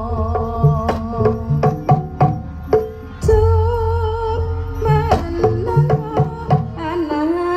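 Live jaranan (kuda lumping) ensemble music: hand-drum strokes in a quick rhythm under a wavering melodic line with vibrato, over a sustained low tone. A heavy low stroke lands about three seconds in.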